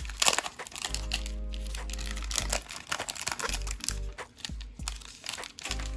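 Foil wrapper of a Panini Contenders basketball card pack crinkling and tearing as it is opened by hand, with crackles loudest right at the start. Background music with a steady bass runs underneath.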